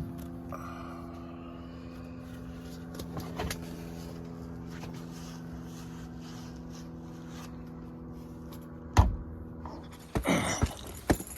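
Vehicle engine idling with a steady even hum, then one loud thump about nine seconds in and a short clatter near the end.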